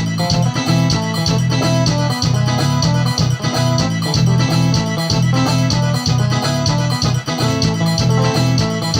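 Instrumental music with a steady, even beat and heavy bass, and no singing.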